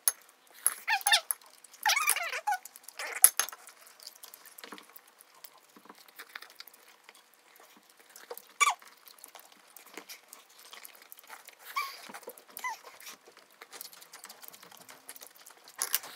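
Noodle-eating sounds: a string of short slurps and small clicks, busiest in the first three seconds and then sparser.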